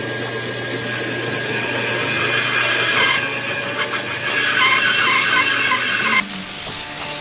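Bandsaw cutting through a thick glued-up block of wood strips: a loud, steady running hum with the rasp of the blade in the wood. About six seconds in the sound drops suddenly to a much quieter level.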